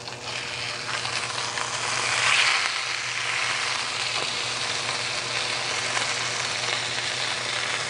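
Basa fish fillet frying in hot oil in a nonstick pan: a steady sizzle that swells about two seconds in as the fillet is flipped over with a spatula and fork.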